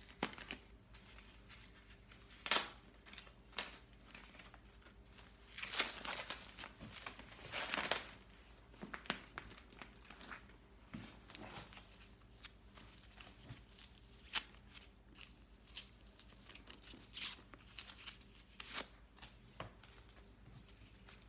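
Paper wrapping crinkling and rustling as it is pulled from a new leather handbag, with scattered clicks and taps from handling the bag and its tags. The longest stretch of crinkling comes about six to eight seconds in.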